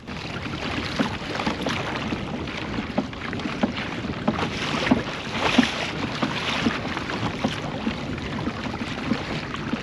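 Water sloshing and splashing along the hull of a pedal kayak under way, with frequent small ticks and knocks.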